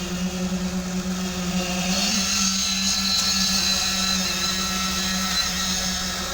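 Concrete transit mixer truck's engine running steadily while its drum discharges concrete down the chute. A higher hiss joins about two seconds in.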